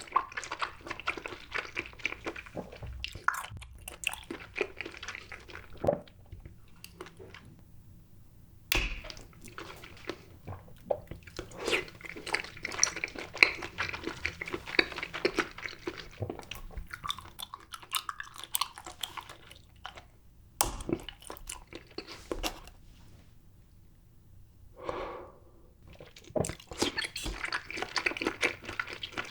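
Close-miked chewing of grape jelly: many small sticky clicks and squishes in quick runs, with short pauses between mouthfuls.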